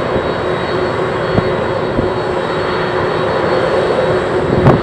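Boeing 767-300 jet engines running steadily: a dense roar with a steady whine held on several even pitches. Wind buffets the microphone with low thumps, the strongest shortly before the end.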